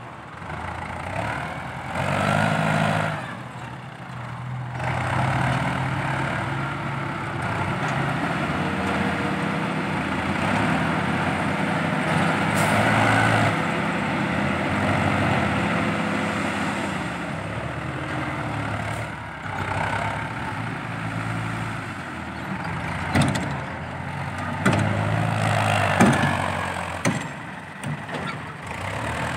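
Diesel engine of a Hino dump truck running and revving while the truck tips its bed to dump a load of soil. A steady whine runs through the middle, and a few sharp knocks come near the end.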